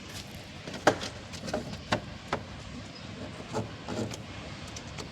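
A series of about six sharp clicks and knocks over three seconds, from car headlight parts being handled and fitted during a bulb replacement.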